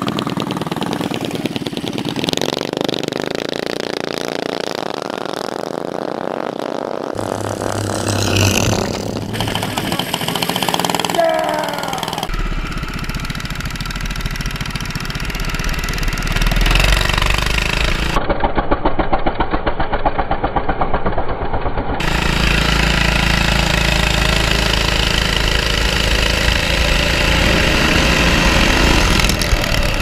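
Honda GX340 single-cylinder four-stroke engine on a mini bike running and revving as the bike is ridden, its pitch rising and falling with the throttle. The sound changes abruptly several times where separate clips are cut together.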